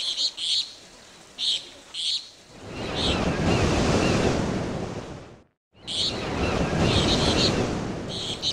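Ocean surf washing in, with birds chirping over it. The wash of the waves swells and fades, drops out to silence for a moment about five and a half seconds in, then washes in again.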